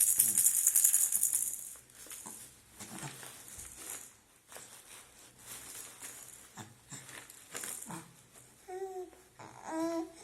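A baby's rattle toy shaken hard for about two seconds, then only faint handling clicks. Near the end the baby coos briefly, twice.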